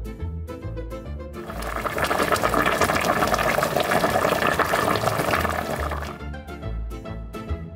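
Background music with a steady beat. From about a second and a half in until about six seconds, the music is masked by a loud rushing, bubbling sound of a pot of pasta water at a rolling boil as the linguine is stirred.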